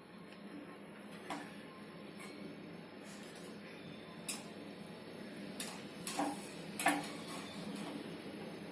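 A handful of light clicks and knocks from handling the fridge's freezer door and rubber gasket as it is pressed back onto the frame, over a faint steady hum.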